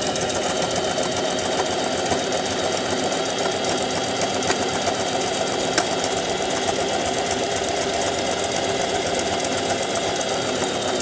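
Singer Facilita Pro household sewing machine running steadily under the foot pedal, stitching a one-step buttonhole with its buttonhole foot: an even, rapid run of needle strokes at constant speed.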